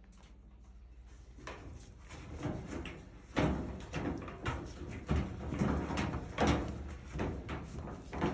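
Repeated irregular knocks and rattles of dryer sheet-metal parts being handled and fitted back together, growing busier and louder after the first few seconds.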